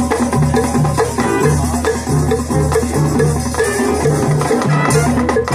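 High school marching band playing a pop arrangement: a repeating riff of short low notes in the low brass over drums and percussion, with the full band above.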